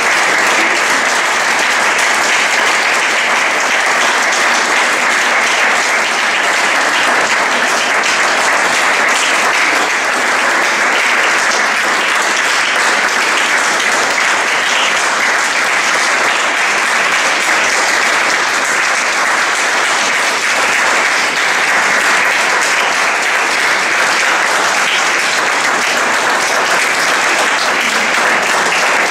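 Audience applauding, a long round of clapping that holds at an even level.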